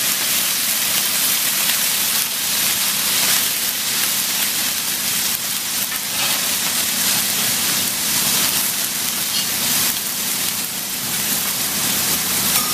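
Yakisoba noodles and cabbage sizzling on a hot griddle, a steady hiss.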